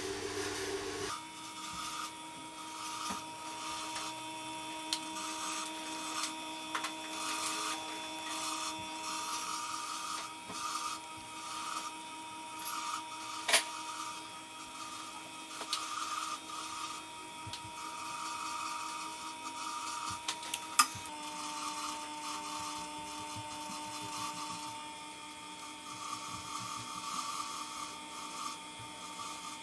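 Tormek sharpener's motor humming steadily as it turns a felt honing wheel, with the serrated edge of a Spyderco knife rubbing against the felt to hone inside the serrations. The hum steps slightly lower about two-thirds of the way through, and two sharp clicks stand out, one near the middle.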